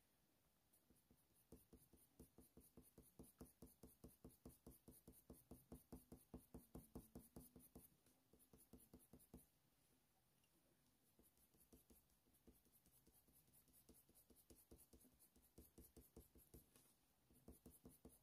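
Faber-Castell Polychromos coloured pencil scratching faintly on hot-press watercolour paper in short quick strokes, about four or five a second. The strokes stop for a second or so midway, then start again.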